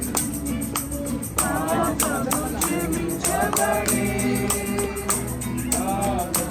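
Group of voices singing a Christian worship song, with a tambourine keeping a steady beat of about four strokes a second.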